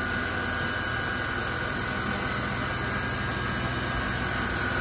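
CNC milling machine's spindle spinning an end mill, a steady hum with a constant high whine; the tool is being jogged in close to check clearance and is not yet cutting.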